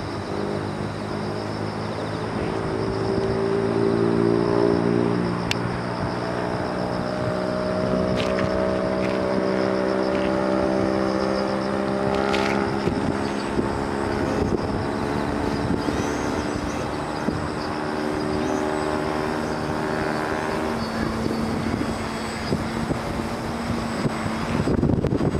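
Electric Pitts Special RC biplane's AXI brushless motor and propeller running in flight: a steady hum of several tones whose pitch shifts a little. Wind noise on the microphone comes in near the end.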